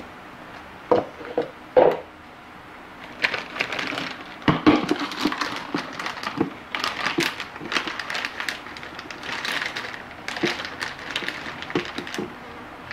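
Things being handled on a kitchen counter: a few knocks about a second in, then a long run of irregular clatters, clicks and scraping as containers and utensils are moved about.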